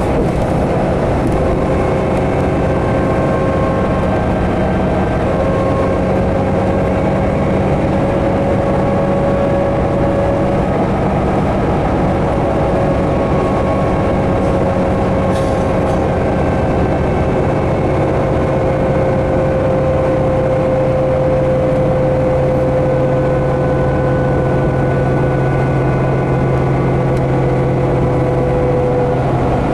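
A 2011 New Flyer D60LFR articulated diesel bus with a Cummins ISL 330 engine, heard from inside while under way: steady engine drone and road noise, with a whine that slowly falls in pitch. About twelve seconds in, the engine note drops lower.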